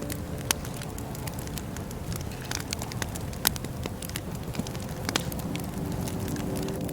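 Wood fire crackling: irregular sharp pops and snaps over a steady low rumble of burning, with the loudest pops about half a second and three and a half seconds in.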